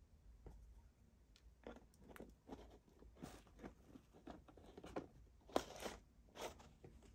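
A screw lid being twisted onto a jar and the jar handled: a run of short scratchy, crunching scrapes, with one sharper knock about five and a half seconds in.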